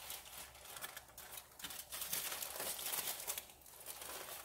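Aluminium foil crinkling and crackling as it is folded and crimped closed by hand, in irregular bursts that are densest in the middle.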